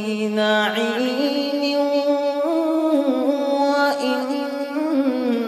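A man's voice reciting the Quran in melodic tajweed style, drawing out the word 'na'im' into one long held note. The pitch climbs in steps and slides back down near the end.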